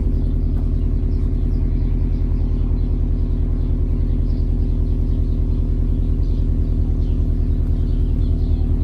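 A car's engine running steady with a low rumble, heard while the car is driving.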